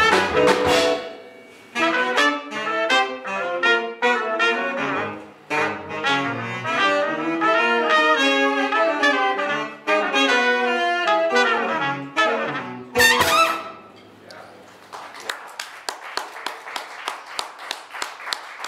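A small jazz band plays the closing phrases of a tune: trumpet and saxophone over upright bass, drums and electric guitar. It ends on a sharp ensemble hit about thirteen seconds in, and applause follows.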